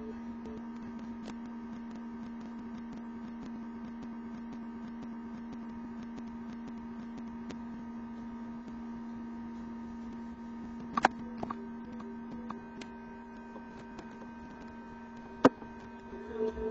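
A steady hum with a few sharp clicks, the loudest about eleven seconds in and another near the end.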